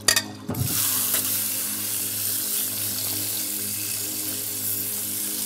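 Kitchen faucet running in a steady stream into a glass bowl of zucchini, splashing over a slotted spoon held under it. The stream starts about half a second in.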